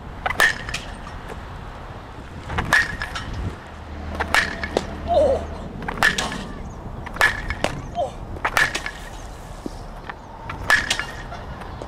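Baseball bat hitting balls in batting practice, a sharp crack with a brief ring roughly every one and a half to two seconds, each often followed closely by a second knock.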